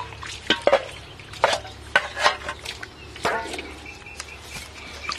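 A steel bowl scooping and splashing muddy water out of a shallow mud hole, with irregular splashes and the bowl knocking and scraping against the mud.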